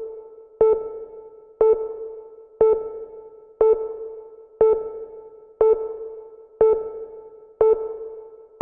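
A single electronic bell-like keyboard tone struck about once a second, the same pitch each time, each note dying away before the next, nine strikes in all.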